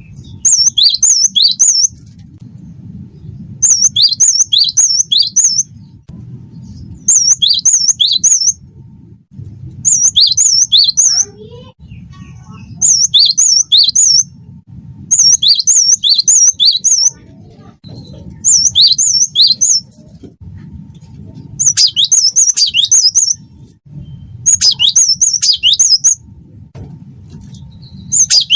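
Cinereous tit (gelatik batu) singing: short phrases of three or four quick, high, whistled notes, repeated about every three seconds, over a low steady background rumble.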